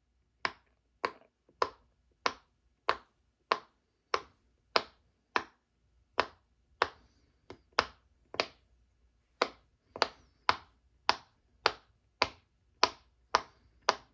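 Silicone push-pop bubble fidget toy, its bubbles pressed one after another, each giving a sharp, clean pop, about two every second. The popping is crisp enough that the player calls it excellent.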